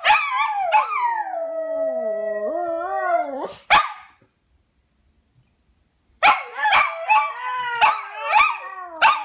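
Two small dogs, a Shih Tzu and a Lhasa Apso, howling together in long wavering howls that slide down in pitch, with short yips mixed in. The howling stops for about two seconds in the middle, then starts again.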